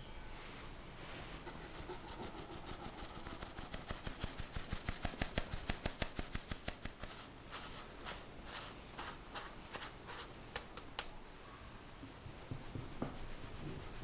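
Fine stainless-steel mesh sieve shaken and tapped over a glass bowl, several quick taps a second with a soft hiss of flour and cocoa powder falling through the mesh. Then slower scrapes as a silicone spatula pushes the last powder through the mesh, and two sharp knocks near the end, the loudest sounds.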